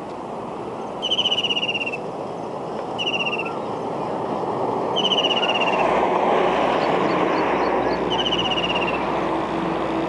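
White-throated kingfisher calling: four rapid, slightly falling trills of about half a second to a second each, every two to three seconds, over steady traffic noise that grows louder about halfway through.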